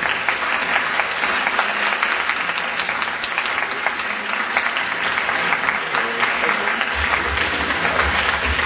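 Theatre audience applauding, a dense steady clapping, with music playing underneath; a low bass beat comes in near the end.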